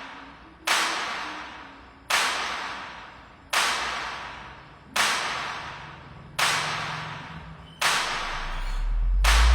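Music with a steady beat: sharp whip-crack hits about every second and a half, each dying away. A deep bass swells in near the end and is joined by quicker hits.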